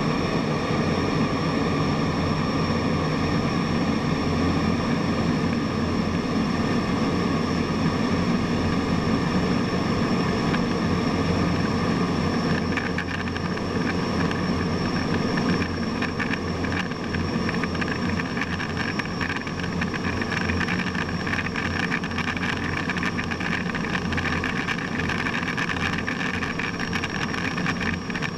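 Steady jet engine and airflow noise heard from inside a military jet's cockpit in flight, with a constant high whine over the rush. A faint crackling runs through it from about halfway in.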